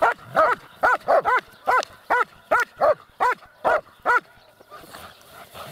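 German shepherd dogs barking for a toy: about a dozen short barks in quick succession, stopping about four seconds in.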